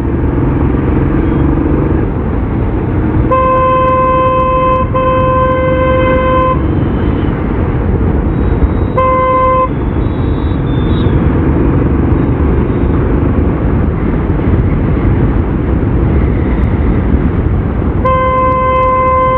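Steady wind and road noise from a moving motorcycle, with a vehicle horn honking at one steady pitch: two long honks back to back about three seconds in, a short one around nine seconds, and another near the end.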